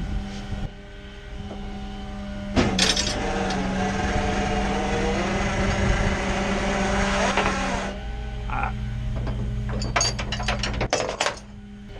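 A flatbed tow truck's winch runs for about five seconds, slackening the cable, over the steady hum of the truck idling. Near the end come several sharp metallic clanks as the winch hook is worked free.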